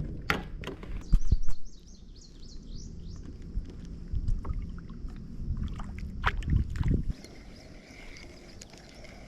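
Knocks and low rumbling from movement in a plastic sit-on-top kayak on the water, which die down about seven seconds in. A bird chirps a quick series of short falling notes about two seconds in.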